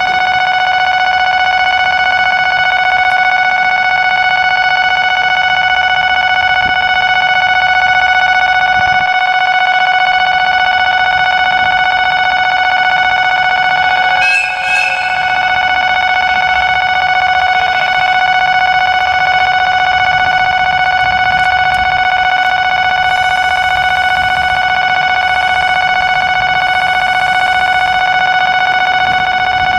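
A loud, steady high-pitched tone with overtones, unchanging throughout, over a faint low rumble, with a brief scuff about halfway through.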